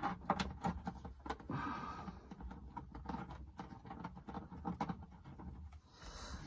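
Scattered light clicks, taps and rustles of interior trim pieces and their fasteners being handled and worked into place by hand in a small aircraft's baggage compartment.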